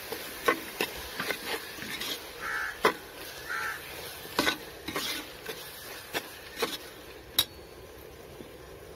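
A steel spoon stirring tomatoes, onions and green chillies frying in oil in a pressure cooker, with irregular clinks and scrapes against the pot over a soft sizzle. The stirring stops about three-quarters of the way through, leaving the faint sizzle.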